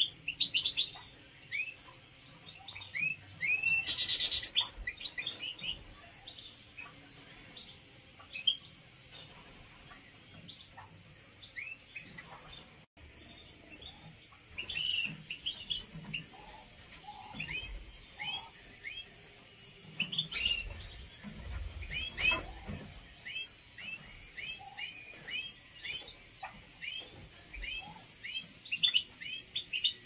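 Caged European goldfinch and canary calling: many short, rising chirps in loose clusters, with a brief dense, buzzy trill about four seconds in. A few low thumps a little past the twenty-second mark.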